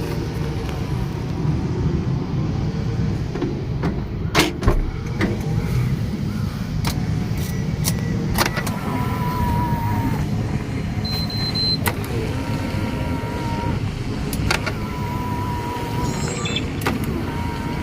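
Electric power-folding door mirror motor folding and unfolding several times, each movement a short even whine of a little over a second, with sharp clicks as the mirror moves. The mirror runs without its squeak, which the repair has cured, over a steady low rumble.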